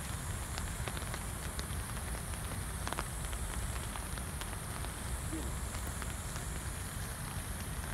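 Steady rain falling, with scattered sharp drop ticks close by and a low rumble underneath.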